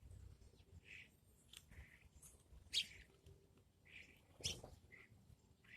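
Small birds chirping in short, scattered calls, faint, with two sharper, louder high chirps near the middle and about three-quarters of the way through.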